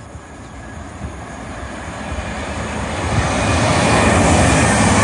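A GWR Networker Turbo diesel multiple unit approaching: its diesel engines and wheels on the rails grow steadily louder over the first three seconds or so, then hold loud as the train draws near.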